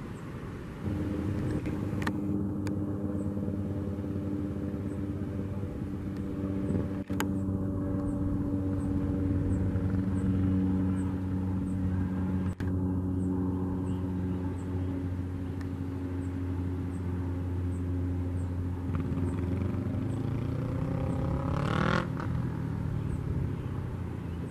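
Cessna 208 Caravan's single Pratt & Whitney PT6A turboprop and propeller droning steadily in flight, a constant pitched hum. It is broken by two abrupt cuts, and near the end the tone sweeps as the aircraft passes closer.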